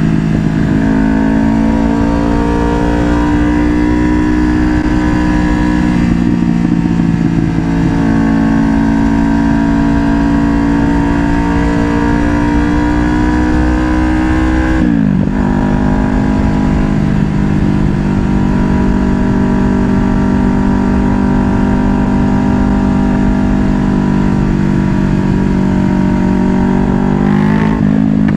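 2024 Kawasaki Ninja 500's parallel-twin engine pulling under way, its note slowly climbing, dropping sharply in pitch at a gear change about halfway through, then climbing quickly as the bike accelerates near the end.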